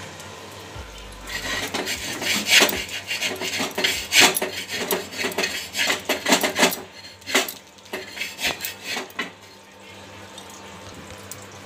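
A metal spatula scrapes and knocks against a kadhai as it prises a cooked rice-batter pitha off the pan. The scrapes start about a second in and come thick and fast for several seconds, then thin out to a few separate clinks and stop near the end.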